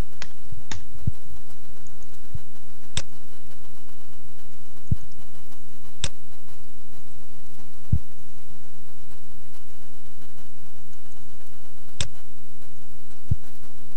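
Steady low electrical hum under a handful of sharp computer keyboard and mouse clicks: a few keystrokes close together at the start, then single mouse clicks every few seconds.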